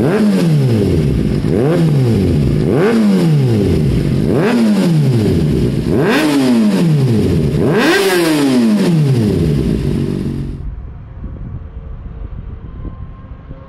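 2019 Kawasaki ZX-6R's inline-four engine revved at a standstill through a Yoshimura Alpha T slip-on exhaust with link pipe on the stock headers: about six throttle blips, each rising in pitch and falling back toward idle. About ten seconds in, the sound cuts to a much quieter roadside background.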